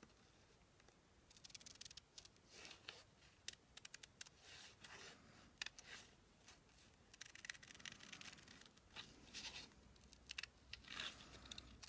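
Scissors snipping paper in a run of short, faint, irregular cuts, with light paper handling between them.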